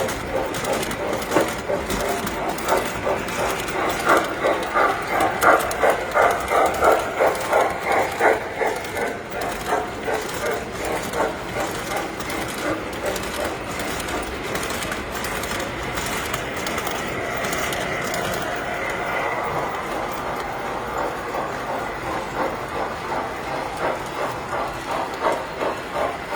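Tinplate model train running on the layout track with a rapid, rhythmic clatter from its wheels over the rails. The clatter is loudest a few seconds in, then eases into a steadier, softer running sound.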